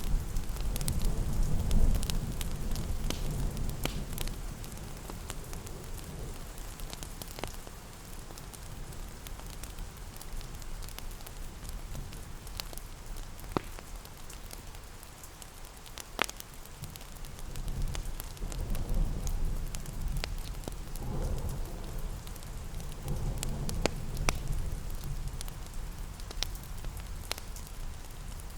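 Fireplace crackling with sharp scattered pops over a steady patter of rain. A low rumble is strong at the start, fades, and swells again in the second half.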